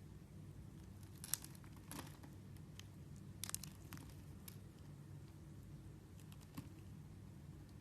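A knife blade cutting into a bar of soap: a handful of crisp crackles and scrapes, sharpest about a second and a half in and again about three and a half seconds in, over a faint low background hum.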